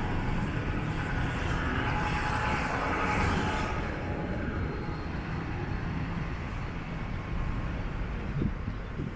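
Street traffic noise: a vehicle passing, louder for the first four seconds and then fading, over a steady low rumble.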